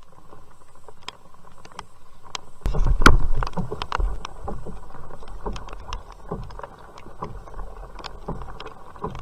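Sit-on-top kayak getting under way in the rain: scattered taps of raindrops over a steady hiss of water, with louder low knocks and rumble of the hull and gear about three seconds in.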